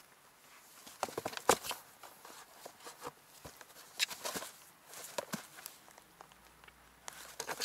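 Kitten's claws scratching and paws knocking on the cardboard box as it plays, in irregular scrabbles and knocks, the sharpest about a second and a half in, about four seconds in, and near the end.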